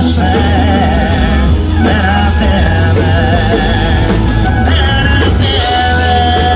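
Country band playing live at full volume: drums, bass and electric guitar, with a voice holding long, wavering notes over them.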